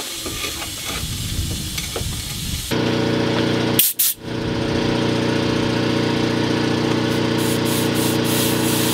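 Compressed air hissing as a welded steel cooling pipe is pressurised for a leak test. About three seconds in, a motor starts up and runs steadily with an even hum and hiss, with a brief dropout a second later.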